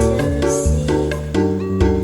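Background music with a steady beat: a bass line and held notes, with plucked string instruments.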